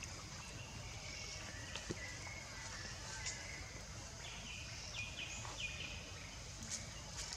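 Outdoor woodland ambience: a steady low background hiss, with a run of short, faint high chirps around the middle and a few scattered light clicks.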